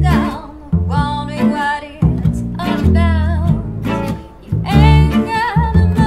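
Small acoustic swing band playing: a woman singing with wide vibrato over double bass, acoustic guitar and violin.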